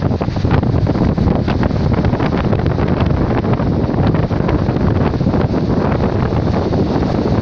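Wind buffeting the microphone in a steady low rumble, over the wash of Baltic Sea surf breaking and running up a sandy beach.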